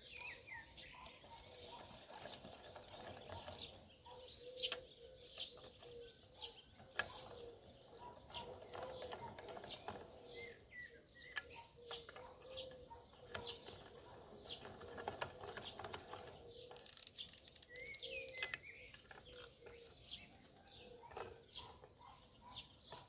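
Birds chirping faintly, with many light clicks and taps from wrenches at work on the drum mower's nuts and bolts.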